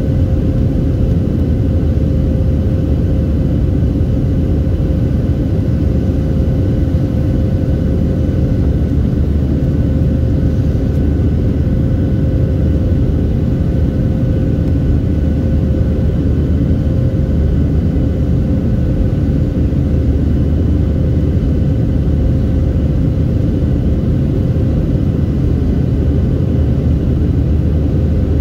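Steady cabin drone of a Boeing 737-700 in climb after takeoff, heard from a window seat over the wing: its CFM56-7B turbofan engines and the rushing air, with a constant tone running through it.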